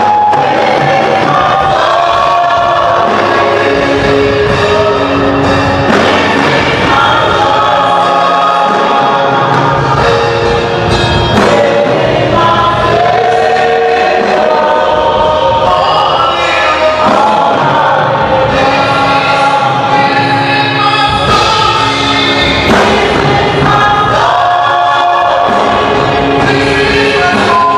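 Gospel music: a choir singing over instrumental backing, loud and unbroken.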